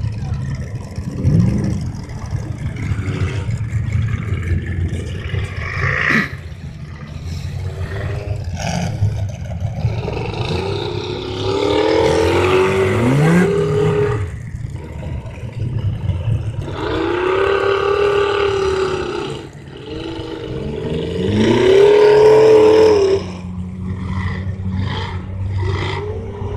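Off-road SUV engine revving hard as it churns through deep mud, rising and falling in pitch in several long pulls, the loudest near the end, over a steady low rumble.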